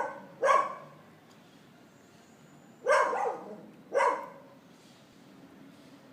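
Four short animal calls: two close together at the start, then two more about three and four seconds in.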